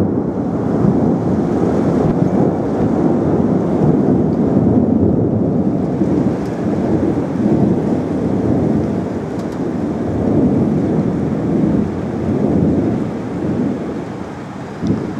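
Heavy rain in a thunderstorm: a dense, steady rushing that swells and eases every few seconds and dies down a little near the end.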